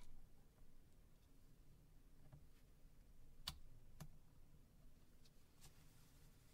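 Near silence broken by a few short, sharp clicks, two close together near the middle: a small pry tool popping the phone's flex-cable connectors off the circuit board.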